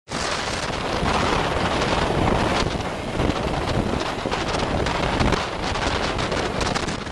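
Wind buffeting a microphone that is moving along a street: a steady rush that swells and dips in gusts.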